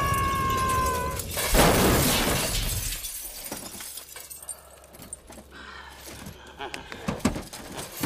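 Film sound effect of a heavy crash with glass shattering about a second and a half in, as a body lands on a car, followed by scattered small clicks of settling glass. A held high tone stops just before the crash.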